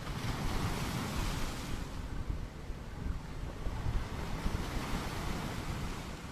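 Wind buffeting an outdoor webcam microphone: a gusty low rumble with a rushing hiss that swells over the first two seconds, then eases.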